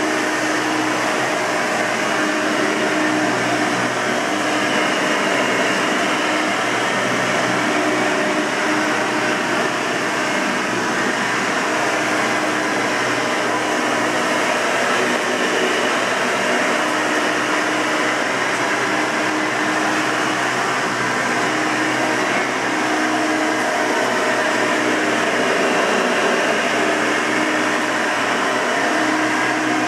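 1992 Hoover Elite 200 bagged upright vacuum cleaner running steadily: a constant rush of air with a faint steady motor tone underneath.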